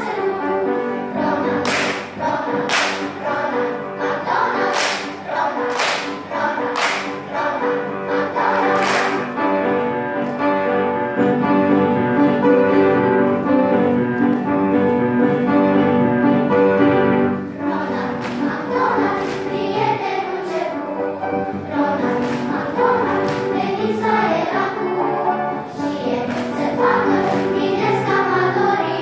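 Children's choir singing, with the singers clapping in time about once a second during the first ten seconds or so.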